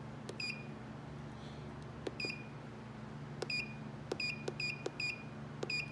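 Avery Weigh-Tronix ZK830 scale indicator's keypad beeping once at each button press: seven short high beeps, each with a soft key click, coming closer together toward the end. The presses are changing the span calibration weight on the display.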